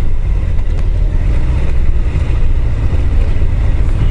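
Steady wind rush and low rumble on a helmet-mounted microphone from a Honda CBR1000F inline-four motorcycle riding along an unsealed gravel road.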